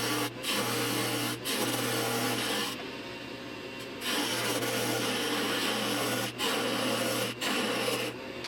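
An 8x12 benchtop wood lathe runs with a steady motor hum while a tool rubs and scrapes against the spinning wood. The sound breaks off briefly several times, and it goes quieter and duller for about a second in the middle.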